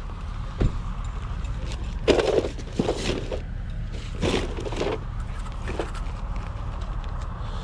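Outdoor market ambience: a steady low rumble of wind on the microphone, with a few brief knocks and scrapes about two, four and six seconds in.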